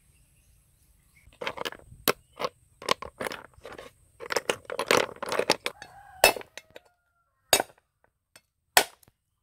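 Hard horn snail shells clinking and cracking in a quick, uneven run of sharp knocks. Then come three single loud chops about a second apart as a knife cuts off the shell tips against a wooden block.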